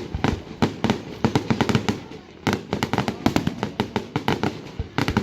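Aerial fireworks going off: rapid volleys of sharp bangs and crackle, several a second, easing briefly about two seconds in before a fresh volley starts.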